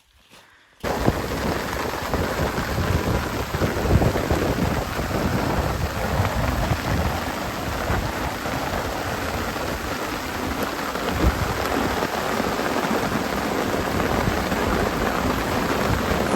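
Heavy rain in a strong wind during a thunderstorm, a dense steady hiss with gusty low rumbling underneath. It starts abruptly about a second in.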